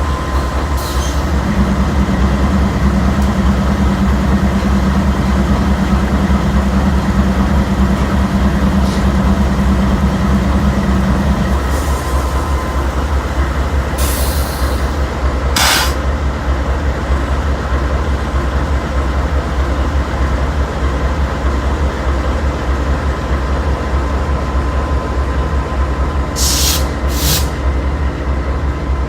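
A heavy engine running steadily with a loud, deep drone. A held tone sits over it for roughly the first ten seconds, and a few short hisses come around the middle and again near the end.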